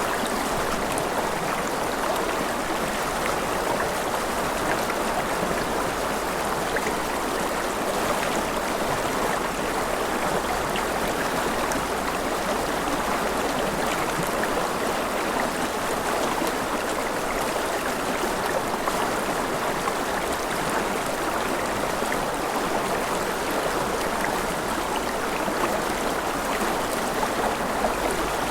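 Mountain river flowing over rapids: a steady, even rush of water that does not change.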